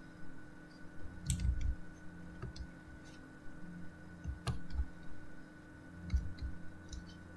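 Irregular clicking of a computer mouse and keyboard: about a dozen scattered clicks, some in quick pairs, over a faint steady hum.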